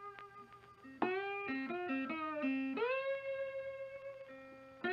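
Background music: a guitar playing slow, held notes, a few of them sliding up into pitch.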